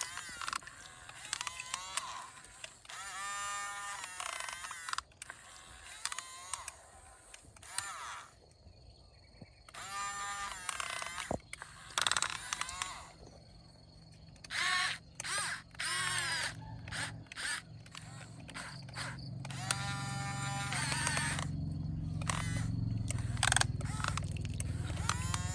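Small electric motors of an RC excavator whining in repeated short runs, each spinning up with a rising pitch as the machine is worked. A low rumble builds up over the last third.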